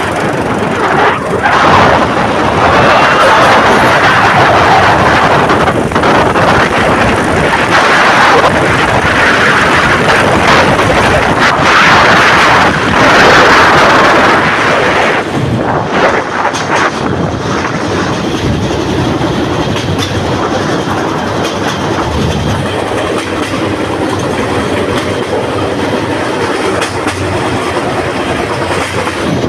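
The MTK-2, a small self-built rail vehicle, running along the track, its wheels rattling and clacking on the rails with scattered knocks over joints. The running noise is louder through the first half and eases somewhat later on.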